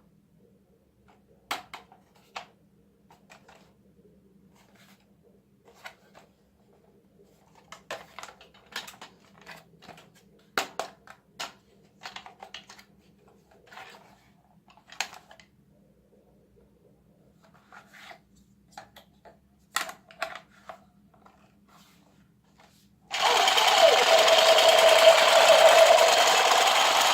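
Scattered light clicks and knocks of plastic toy parts being handled, then near the end a battery-powered toy assault rifle starts its continuous electronic firing effect, with its vibration motors buzzing.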